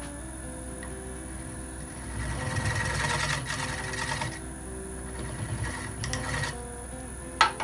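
A 19 mm skew chisel cutting into a spinning laburnum workpiece on a wood lathe: two spells of rough scraping, the first about two seconds in and lasting about two seconds, the second shorter around five to six seconds, over background music. A sharp click near the end.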